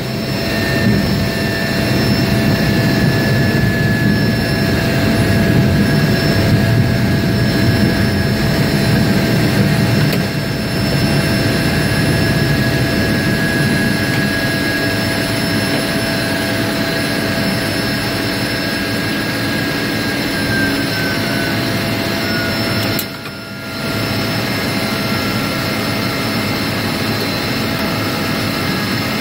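Floatplane engine and propeller running at low taxi power on the water: a steady drone with high whining tones over it. It eases a little about ten seconds in and dips briefly near the end.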